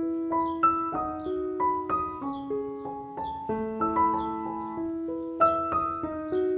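Background piano music: a gentle melody of single held notes changing about every half second, with faint high chirps at regular intervals.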